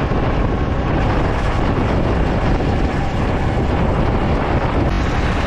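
Steady rush of riding noise on a Yamaha MT-15 motorcycle: wind buffeting the microphone over the bike's running and road noise.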